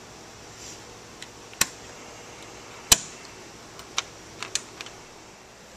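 Sharp clicks and light knocks from a hand handling the switches and wiring of a homemade fireworks firing box. A few isolated clicks, the loudest about three seconds in, then a quick run of lighter ticks about four to five seconds in.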